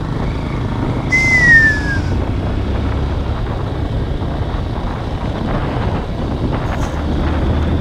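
Honda CB190R single-cylinder motorcycle engine running steadily under way, with wind buffeting the microphone. About a second in, a brief whistle-like tone slides down in pitch.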